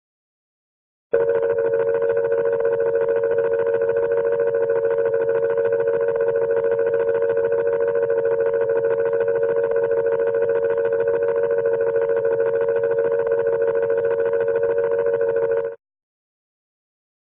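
A steady, buzzy electronic tone with a thin, telephone-line quality, much like a phone dial tone. It starts abruptly about a second in, holds level without change for about fourteen seconds, then cuts off.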